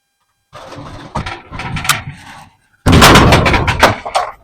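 A heavy appliance being shifted on a trailer by hand: scraping with scattered knocks, then from about three seconds in a louder run of rapid bangs and rattling as it is shoved along.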